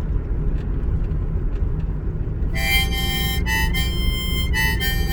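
A steady low rumble, then harmonica music comes in about halfway through: a few held notes, changing every half second or so.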